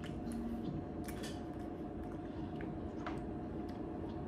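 Faint scattered clicks and short scrapes from an ice cream carton being opened and handled, over a steady faint hum.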